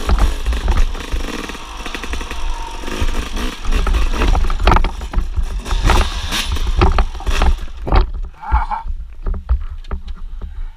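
A 1999 Suzuki RM250's two-stroke engine running as the bike clatters down a rocky trail, with wind buffeting the microphone. About eight seconds in, the engine noise cuts off suddenly as the bike goes down, leaving scattered knocks.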